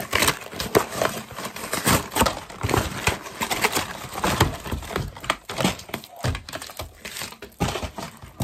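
Cardboard Easter egg box being torn open by hand: a dense, continuous run of ripping, rustling and crinkling crackles.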